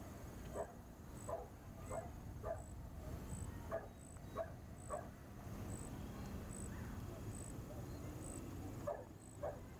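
Dog barking faintly, a string of short single barks at uneven gaps with a pause in the middle, over a soft high tick that repeats a little faster than once a second.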